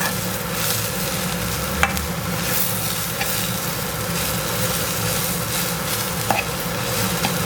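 Spatula stirring and mixing mashed potato filling in a pan of hot oil, with a steady sizzle and a few sharp knocks of the spatula against the pan.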